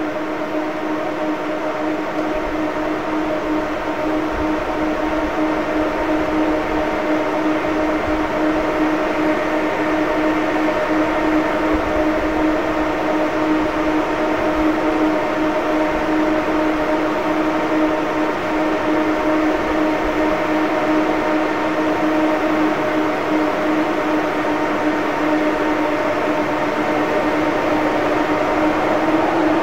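EF63 electric locomotive standing with its auxiliary machinery running: a steady, even-pitched whine over a rushing noise, slowly growing louder. Near the end the whine begins to rise in pitch.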